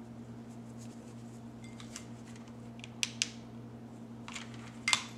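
Handling noises from gluing artificial rose petals with a hot glue gun: a few short crackles and clicks, a pair about three seconds in and the sharpest near the end, over a steady low hum.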